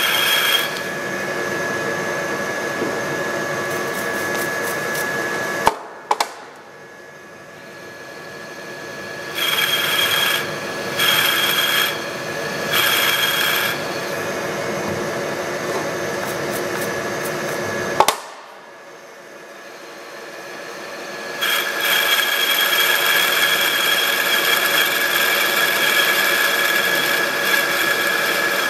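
Milling machine spindle running as a counterbore cuts into thick plastic, a steady machine whine with the chip-cutting noise rising and falling over several stretches. The sound drops abruptly twice, about six and eighteen seconds in, each time starting with a sharp click.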